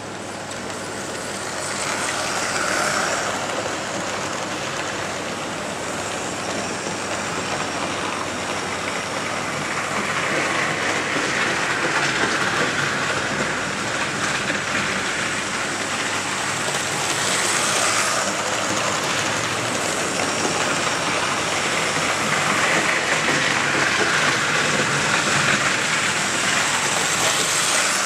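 Hornby OO-gauge model of the Coronation Class locomotive Duchess of Sutherland running with its coaches: a steady whirr of the electric motor with the wheels rattling over the model track. It swells louder and eases off several times as the train passes close by on its laps of the layout.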